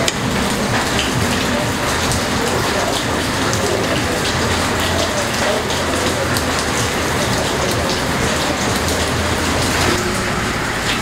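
Steady hiss of heavy rain falling, even and unbroken.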